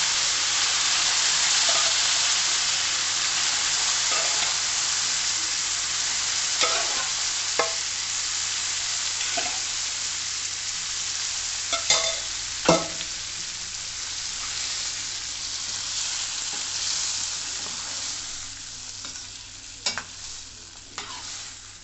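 Cooked potato and chana dal kootu sizzling loudly in hot tempering oil in a steel kadai as it is poured in and stirred, the sizzle gradually dying down. A few sharp clicks of the ladle striking the pan are heard while stirring.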